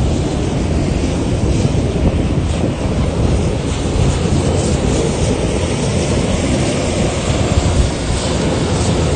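Strong wind buffeting the microphone: a loud, steady, low rushing roar.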